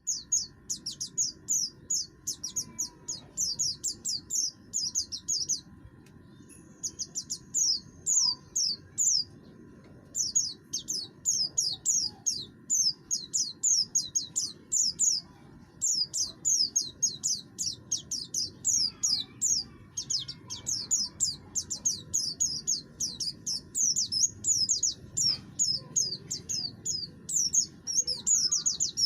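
Buxton's white-eye (pleci buxtoni) singing a rapid, rough-toned song of high, downward-slurred notes, several a second, in long runs broken by brief pauses.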